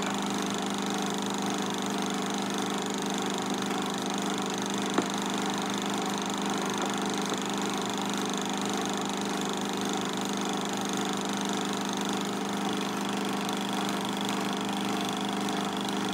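Film projector running steadily, its motor and film mechanism giving an even mechanical whir while blank leader runs through and the soundtrack is silent. A single sharp click about five seconds in.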